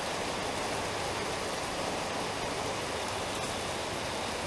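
Steady rain falling, an even hiss with no separate drops or knocks standing out.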